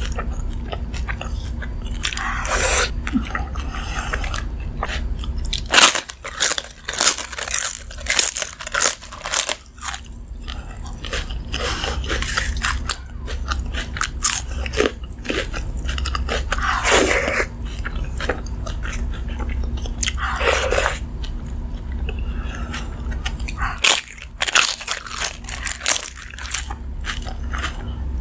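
Close-miked eating of crunchy foods such as fried vegetables, papad and raw onion: irregular sharp crunches and bites with softer chewing in between, over a low steady hum that drops out for stretches.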